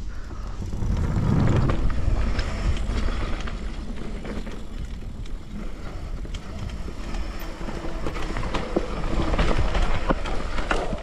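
Downhill mountain bike being ridden down a dirt trail: wind rumbling on the microphone and tyre noise, with scattered clicks and clatter from the bike over bumps. It swells louder twice, near the start and near the end.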